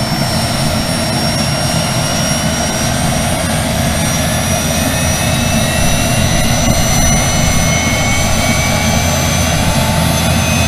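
Helicopter turbine engine and rotor running: a loud, steady noise with a high whine that drifts slowly in pitch.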